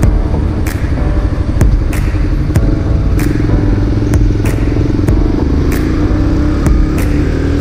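Motorcycle running on the road, a steady low engine rumble with sharp clicks about twice a second.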